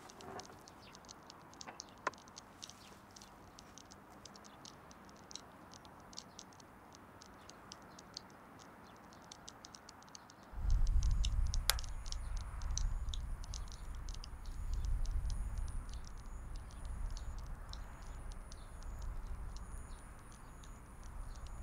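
Fire crackling as a pile of photo albums and books burns, with many small quick crackles. About halfway through, a loud low rumble comes in under the crackling.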